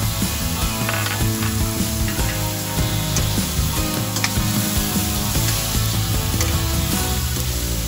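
Diced red onion and garlic sizzling in hot oil in a stainless steel frying pan, stirred with a metal spoon that clicks against the pan now and then. Steady background music plays underneath.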